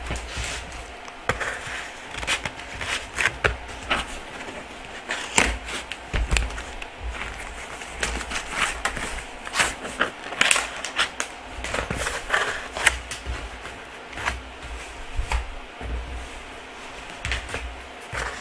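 Cardboard box and packing being handled and picked apart by hand: irregular clicks, scrapes and crinkles.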